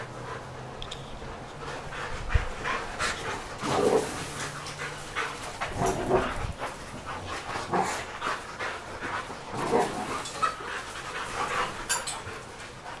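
Two boxer dogs panting hard in rough play, in short irregular bursts.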